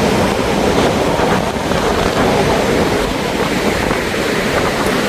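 Rough sea surf breaking on the beach in a steady rush, with wind buffeting the microphone.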